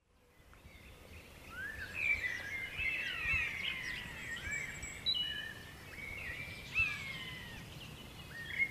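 Several wild birds singing: a busy mix of whistled, gliding notes and chirps, fading in over the first two seconds, over a low outdoor background rumble.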